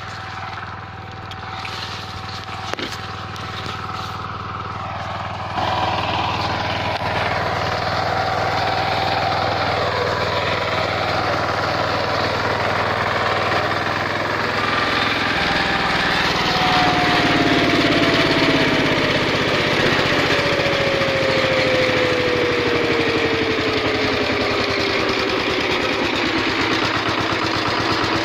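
VST Shakti 130 DI power tiller's single-cylinder diesel engine running steadily with a fast even chug, getting louder about six seconds in.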